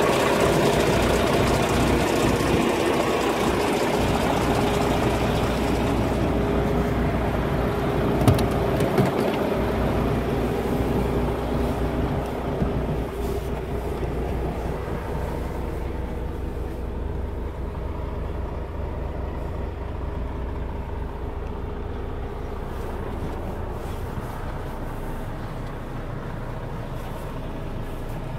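DAF XF 460 truck's diesel engine idling steadily, with a couple of knocks about eight and nine seconds in. From about halfway, the idle is heard more muffled from inside the cab.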